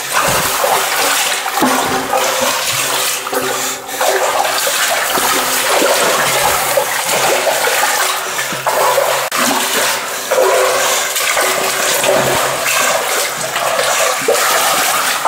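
Feet wading through water in a flooded narrow tunnel, with continuous irregular splashing and sloshing.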